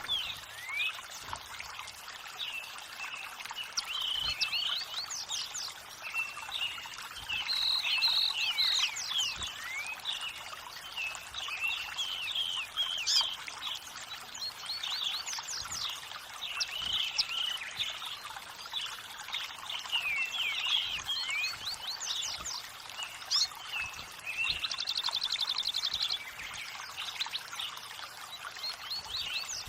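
Many birds chirping and singing over the steady hiss of running water. About 25 seconds in, one bird gives a fast trill.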